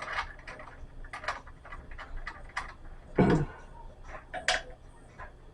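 Scattered light clicks and taps of faucet hardware being handled as the mounting nuts are unscrewed from a new faucet, with one louder thump about three seconds in.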